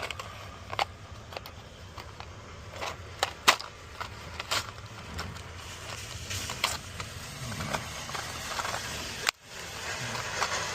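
Scattered sharp clicks and light knocks of a plastic bit holder and its packaging being handled, over a steady low hum. The sound drops out abruptly for a moment near the end.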